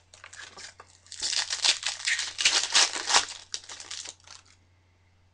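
A Bowman Chrome foil trading-card pack wrapper crinkling and tearing as it is pulled open by hand, a dense crackle lasting about three seconds.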